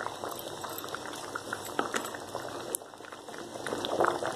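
Chicken curry gravy with cream bubbling at a simmer in a large metal pot, with a scatter of small pops. A wooden spoon stirs through it, a little louder about four seconds in.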